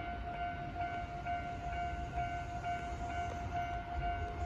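An electronic railway warning bell rings in an even pulse, about two strokes a second, over a low rumble.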